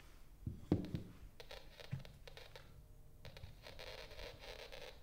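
A few light knocks and scrapes as a wooden block is set down on a cloth-covered table and an acoustic termite detector is fitted to it, then a faint steady hiss over the last second or so. No termite clicking comes through the detector: no live termites in this piece of wood.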